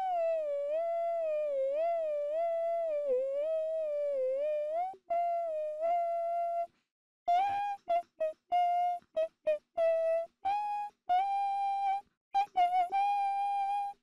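A single voice humming a wordless melody. It wavers up and down for about five seconds, then holds a note, and after a brief break around seven seconds in turns to a quick run of short, clipped notes.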